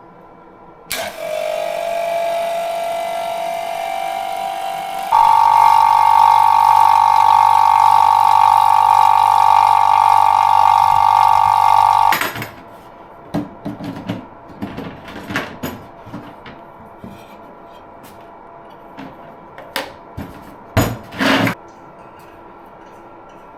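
Pressurised gas hissing out through a valve or fitting with a steady whistle. The whistle jumps higher and louder about five seconds in and cuts off abruptly about twelve seconds in, followed by scattered light metallic taps and clinks of tools on metal.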